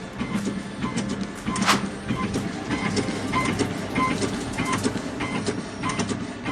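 Automatic hot-knife strap cutting machine running: a steady motor hum with a repeating clack of the feed and cutting blade, about two to three strokes a second, one stroke louder near the middle.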